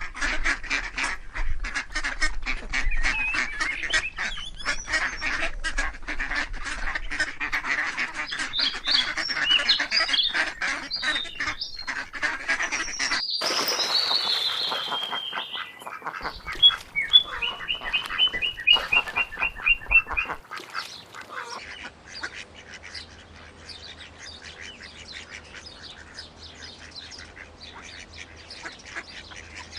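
Ducks quacking and calling in a crowded chorus, with high squeaky calls mixed in. About 13 seconds in the sound changes abruptly to other calls, including a quick run of evenly spaced calls. After about 20 seconds the calls turn fainter and sparser.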